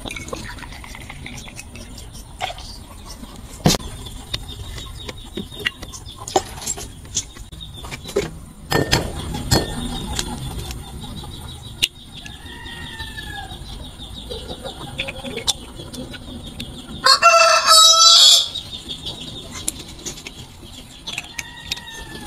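A rooster crows once, loudly, about seventeen seconds in, the call lasting about a second and a half. Around it come scattered sharp clicks and knocks of glass and bar tools being handled, and a few short falling calls.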